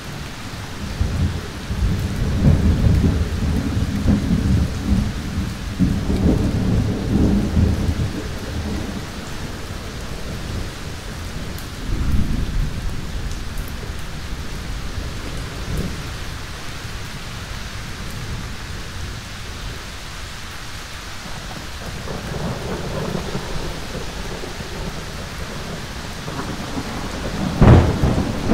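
Thunderstorm: steady rain under rolling thunder that rumbles for several seconds at the start, swells briefly twice in the middle, rumbles again later, and ends in a sharp thunderclap, the loudest moment.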